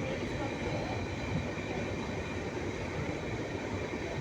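Moving train running: a steady rumble and noise with no sudden events, and a faint steady high whine over it.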